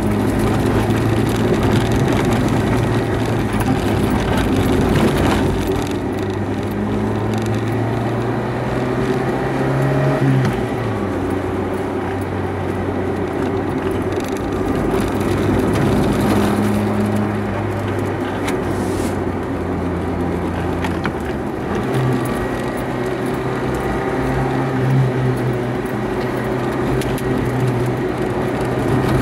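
Renault Supercinco (Super 5) Campus engine pulling at road speed, heard from inside the cabin with road noise. Its steady note drops twice, about ten and twenty-two seconds in.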